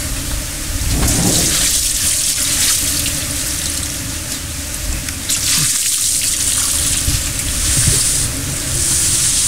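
Water poured from a bucket splashing over a downed elephant, a hissing splash that swells twice, with a low rumble underneath.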